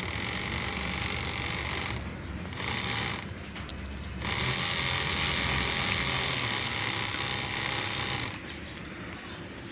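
Four small brushed DC motors of a homemade mini belt sander running a sandpaper belt on a 12 volt supply through a speed controller, a steady mechanical running noise over a low hum. It cuts out briefly twice, about two and about three and a half seconds in, starts again each time, and stops about eight seconds in.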